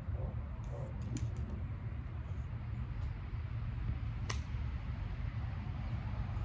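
A golf iron strikes a ball off a range mat: one sharp click about four seconds in. Under it runs a steady low rumble of wind on the microphone, with a few faint clicks about a second in.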